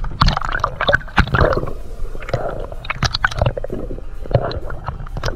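Water sloshing and gurgling around a submerged camera's microphone in its waterproof housing, with irregular sharp pops and splashes over a steady low rumble.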